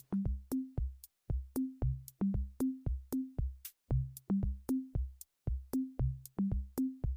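Background electronic music: a drum-machine beat of short, punchy low drum hits, about three to four a second, with a bouncing bass line.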